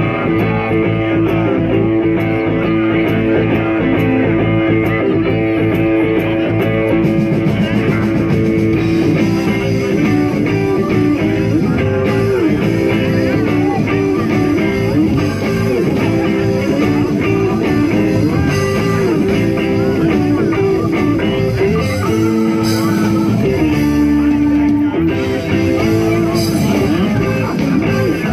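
Live blues band playing loudly, with guitar carrying the lead.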